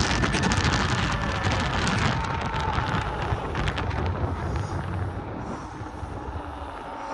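Wind buffeting the microphone with road and tyre rumble during a ride on a Kaabo Wolf King GT 72-volt electric scooter, with a faint steady whine and crackles over the first few seconds. The noise fades gradually toward the end.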